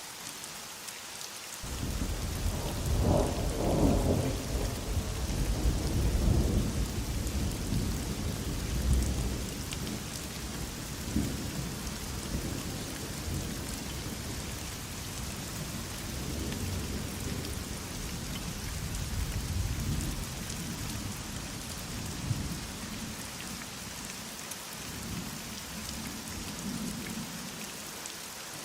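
Heavy rain falling steadily, with a long roll of thunder that breaks in about two seconds in, is loudest over the next few seconds, then keeps rumbling in swells and dies away near the end.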